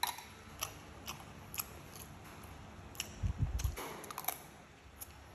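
Someone eating rice with a metal spoon. Small sharp mouth clicks of chewing come about every half second, and a cluster of spoon knocks and scrapes comes about three to four seconds in as a spoonful is scooped and taken into the mouth.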